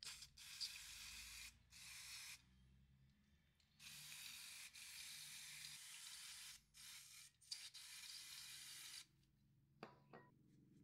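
Aerosol brake cleaner sprayed onto a brake caliper in about six faint hissing bursts of one to two seconds each, with short pauses between, to clean off brake dust.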